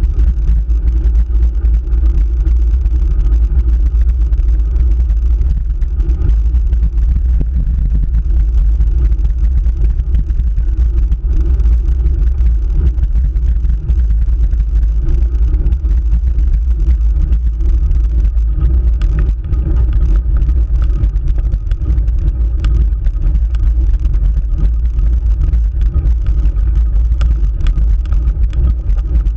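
Steady loud low rumble of riding noise picked up by a camera mounted on a road bike's handlebars while climbing on asphalt: wind on the microphone and road vibration. A few faint ticks come through in the second half.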